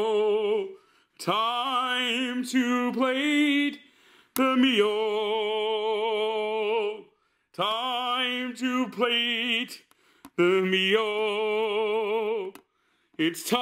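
A man singing unaccompanied and without clear words: about five phrases of long held notes with vibrato, each two to three seconds long, with short breaths between.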